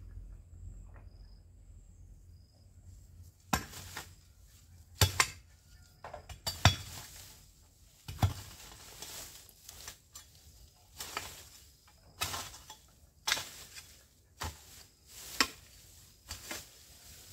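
Metal hoe blade chopping into weedy ground, a dozen or so sharp strikes about one a second, starting a few seconds in.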